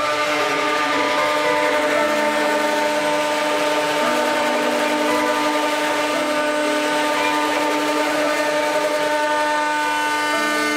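6090 CNC router carving with a V-bit, its spindle running at 18,000 rpm: a steady whine of several tones over a cutting hiss, with a lower tone that shifts pitch every couple of seconds as the machine moves.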